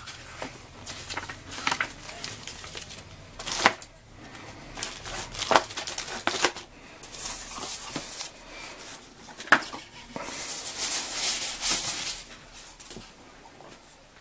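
Packaging being handled: paper and plastic wrapping rustling and crinkling, with scattered light clicks and knocks. The longest, loudest crinkling comes about ten to twelve seconds in, as the plastic wrap comes off the TV box.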